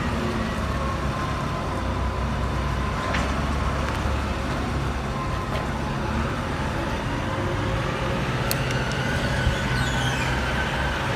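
Wheel loader's diesel engine running steadily, with a few light clicks.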